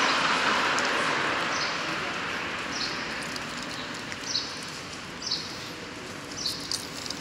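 A bird chirping on an empty city street: short, high chirps about once a second. Under them, a steady street noise that fades away over the first few seconds.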